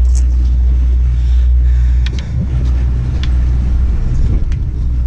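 Steady low drone of the fishing boat's engine running, with a few light clicks over it.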